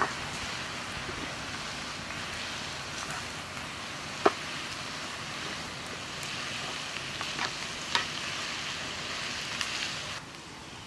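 Sliced onions sizzling in hot oil in a pan, a steady frying hiss broken by a few sharp pops, the loudest about four seconds in. The sizzle drops away shortly before the end.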